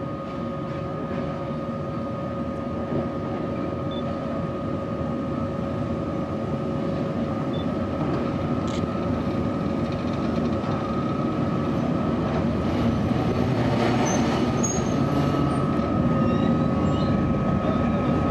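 Narrow-gauge electric train: a steady electric hum with two even tones over a rumble that grows louder as a 1966 Skoda-built 1500 V DC electric locomotive rolls slowly up the track.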